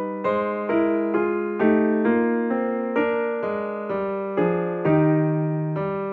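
Background music: a piano playing a slow melody of single struck notes and chords that ring and fade, about two notes a second.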